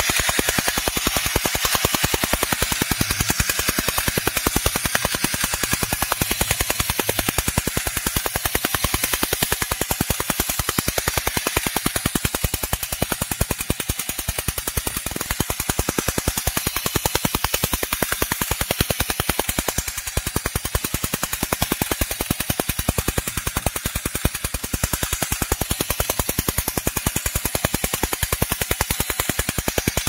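A 1960 Nomura battery-operated tin bulldozer toy running, its motor, gearing and tin body making a fast, even, machine-gun-like clatter. The once-stuck mechanism has had parts replaced and now runs freely.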